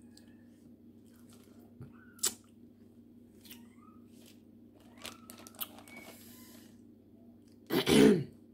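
Shrimp being peeled by hand over a plastic bag: scattered small clicks, crackles and crinkles of shell and plastic, with a steady low hum under them. Near the end there is a short, loud voice-like sound.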